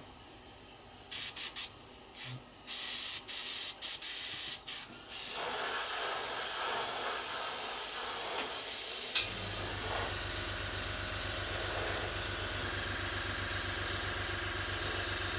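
Airbrush spraying paint: a hiss that cuts on and off in short bursts, then runs steadily as the coat goes on. A low steady hum comes in with a click about nine seconds in.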